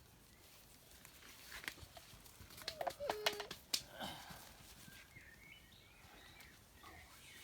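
Quiet outdoor backyard sound: a few faint sharp clicks and knocks between about one and four seconds in, a short pitched call about three seconds in, and small bird-like chirps near the end.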